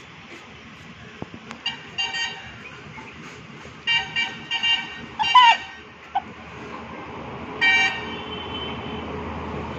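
Vehicle horns honking in several short toots, each at a steady pitch, about two seconds in, a cluster around four to five and a half seconds in, and again near eight seconds, over a low traffic hum.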